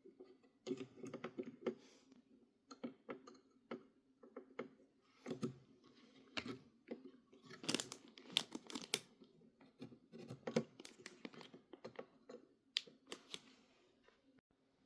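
Irregular small plastic clicks and rustling handling noises as RAM sticks are handled and the motherboard's DIMM slot latches are opened for fitting.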